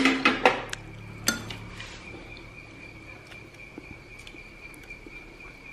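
Chopsticks and china rice bowls clinking and tapping during a meal: several sharp clicks in the first second and a half, then only faint occasional taps, over a steady high-pitched tone.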